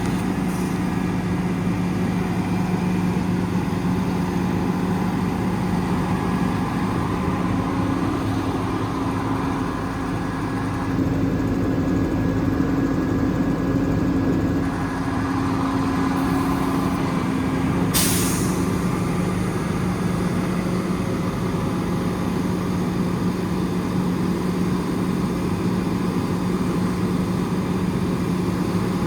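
Cummins ISL 8.9 diesel engine of a 2014 Freightliner M2 truck running steadily. About eighteen seconds in there is one short, sharp hiss of air.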